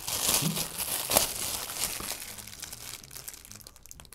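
Crinkly plastic wrapping being pulled open and handled, with irregular crackling and rustling that is busiest in the first couple of seconds and dies down near the end.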